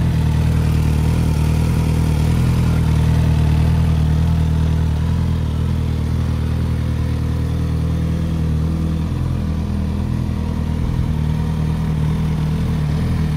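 Suzuki GSX-S1000's inline-four engine idling steadily.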